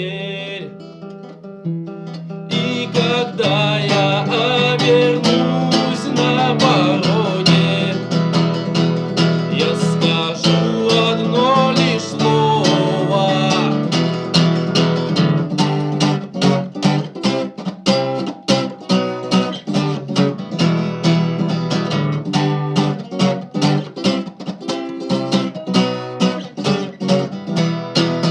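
Acoustic guitar strumming chords in a steady rhythm, playing the instrumental ending of the song after the last sung line; the playing starts about two and a half seconds in.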